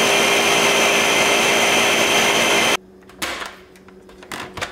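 Ninja countertop blender running at full speed, blending frozen strawberries and milk. It cuts off suddenly about three seconds in, followed by a few plastic clicks and knocks as the lid is unlatched from the pitcher.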